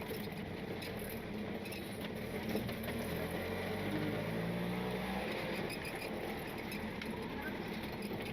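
Steady traffic noise with a motor vehicle engine humming loudest in the middle, then fading; cuts off abruptly at the end.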